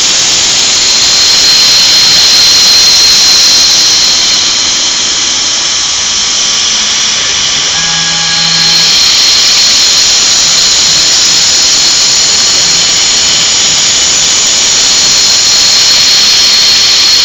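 CNC machine running with a loud, steady high-pitched whine and hiss, typical of a router spindle at speed, with a brief lower hum about eight seconds in.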